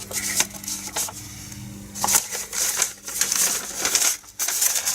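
Paper instruction sheets rustling and crinkling as they are handled and turned over, with a few sharp clicks in the first couple of seconds.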